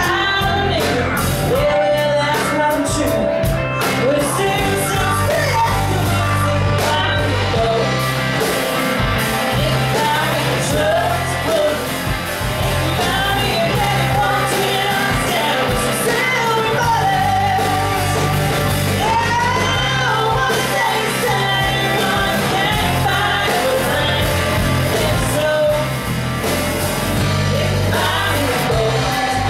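Live country band playing with a woman singing lead: guitars, bass guitar and drums under her voice, with the room's echo.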